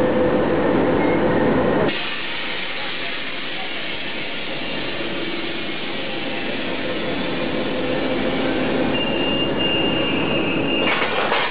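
Russian-built diesel locomotive running as it creeps in to couple onto a passenger train. Its engine sounds loud at first, then drops abruptly to a quieter steady run about two seconds in. A faint high-pitched squeal joins near the end.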